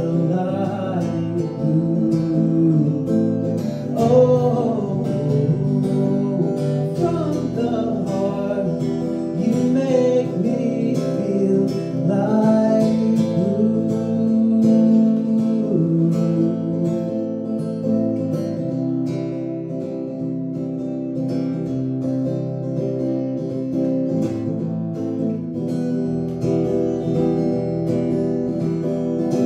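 Acoustic guitar strummed while a man sings. The singing stops about halfway through and the guitar carries on alone.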